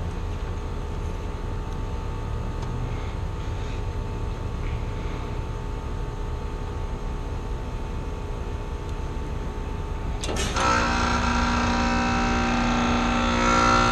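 Rooftop heat pump running with a steady mechanical hum. About ten seconds in, the reversing valve switches over with a brief sudden sound, and the unit then runs louder on a different note. The system is shifting back into heating because the valve's 24-volt signal has been disconnected.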